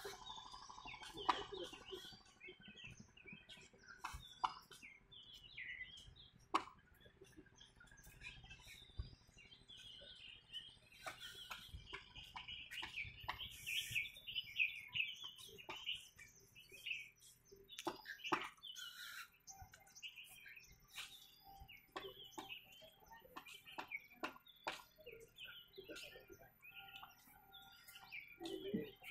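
Birds chirping in many short high chirps throughout, faint, with a few sharp clicks scattered among them.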